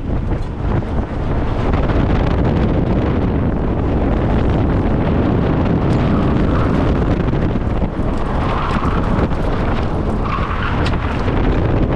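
Tesla Model 3 Performance driving hard, heard from a microphone mounted outside the car: wind rushing over the microphone and tyre roar on the asphalt. The tyres squeal briefly three times in the second half as the car corners.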